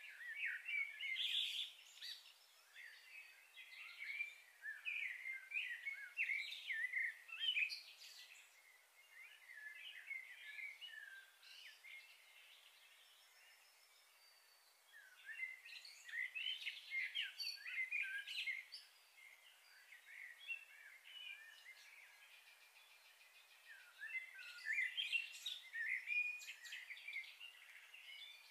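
Small birds chirping and chattering in quick, high-pitched calls, coming in three busy spells with quieter gaps between.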